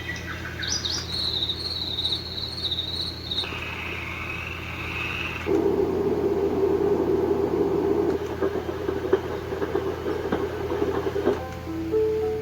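Baby white noise machine playing its built-in sounds one after another: a high warbling cricket-like chirp, then a lower warbling tone, then a dense low hiss with scattered clicks. Near the end a lullaby-like melody of single notes begins.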